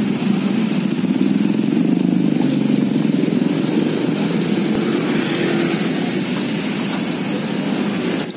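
Steady low running of small motorbikes passing on the street, loud throughout, with a faint hiss above it.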